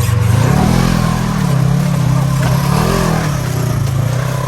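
Polaris RZR side-by-side UTV engine running under load on a trail drive. It revs up about half a second in, eases off, and revs again around three seconds in.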